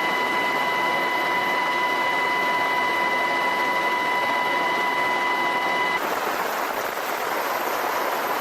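MH-60S Seahawk helicopter running: steady rushing noise with a high whine. About six seconds in, the sound changes abruptly and the whine drops away.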